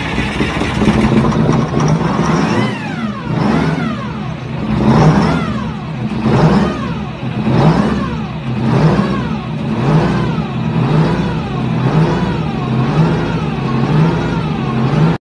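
Detroit Diesel 8V71T, a turbocharged two-stroke V8 diesel with a Roots blower, running just after a cold start. Its revs rise and fall over and over, about once a second, and a high whine sweeps down and up with each cycle. The swings grow smaller near the end, and the sound cuts off suddenly.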